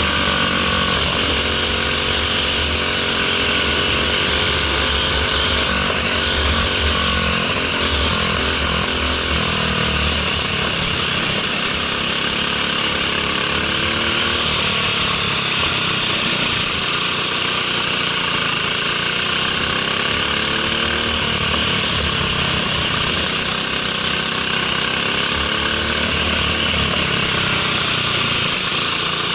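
Briggs & Stratton LO206 four-stroke single-cylinder kart engine at race pace, heard on board the kart. Its pitch falls and rises again and again as the kart slows into corners and accelerates out.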